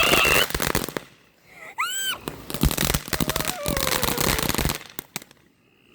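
Consumer ground fireworks going off: dense crackling with a high whistle that dies away about a second in, then a second spell of crackling with short whistles, ending about five seconds in with a couple of faint pops.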